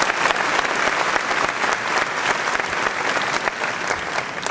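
Audience applauding with many hands clapping, tailing off near the end.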